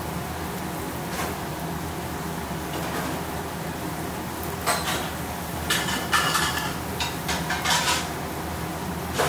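Kitchen clatter of metal utensils and cookware: a few sharp clinks and knocks with brief ringing, mostly in the second half, over a steady low hum.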